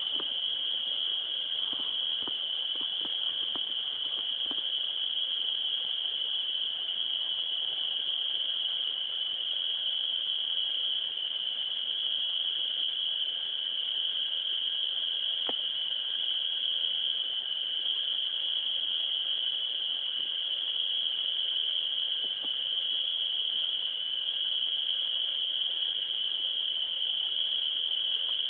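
Steady, unbroken high-pitched chorus of crickets, with a few faint clicks early on and one about halfway through.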